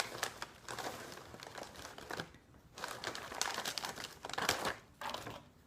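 Crinkling and crackling of a Hot Fries snack bag as fingers dig in for the next chip, in two stretches of a couple of seconds each.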